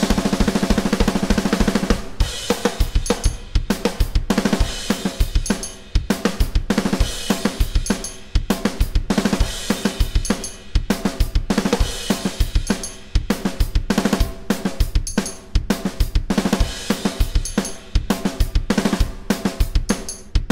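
Roland electronic drum kit played alone at a fast tempo of about 200 beats per minute: a rapid, even run of strokes for the first couple of seconds, then a driving groove of kick, snare, hi-hat and cymbal hits.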